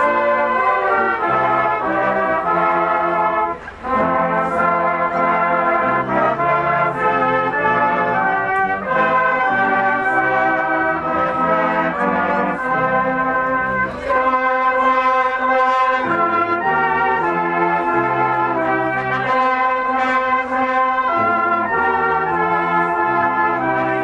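Salvation Army brass band playing a tune live, several brass instruments sounding together in held, changing notes, with a brief break about three and a half seconds in.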